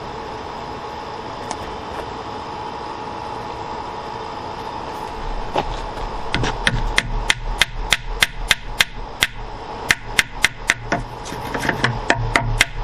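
Hammer tapping glued wooden dowels into the hinge screw holes of a wooden door: a series of sharp, evenly paced taps, about two to three a second, starting about halfway through over a steady background hum.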